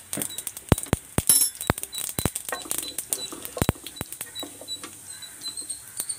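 Mustard and cumin seeds spluttering in hot oil in a kadai: sharp, irregular pops over a faint sizzle, with several louder pops in the first four seconds. This is the crackle of the tempering as the seeds burst.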